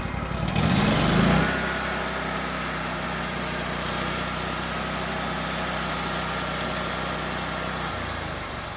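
Wood-Mizer band sawmill: its engine revs up about a second in, and the band blade runs through a cut with a steady high hiss for about six seconds, easing off near the end.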